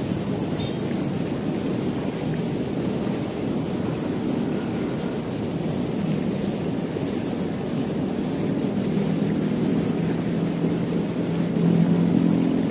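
Fast-flowing river water rushing steadily. Near the end the low hum of an engine comes in and grows louder.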